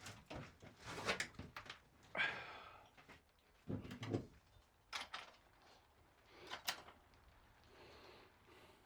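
Hand tools knocking and scraping on metal: a few separate clunks and clicks with short scrapes in between, as a socket set is worked on the bobbin bolts.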